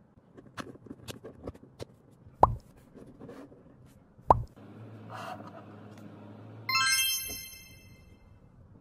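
A few light clicks, then two cartoon 'plop' sound effects about two seconds apart, each a sharp pop dropping in pitch. Near the end comes a bright shimmering chime effect that rings for about a second and a half and fades.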